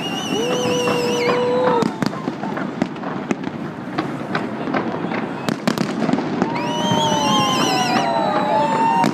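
Fireworks popping and crackling with many sharp reports, over a crowd's voices. Whistling tones sound for about two seconds at the start, then again near the end, several of them gliding in pitch.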